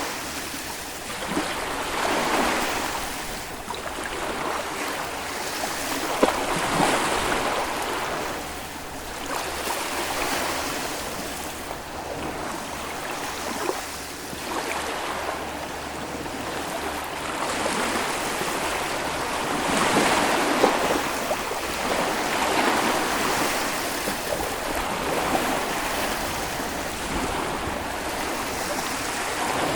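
Small Baltic Sea waves breaking and washing up on the beach: a steady hiss of surf that rises and falls every few seconds.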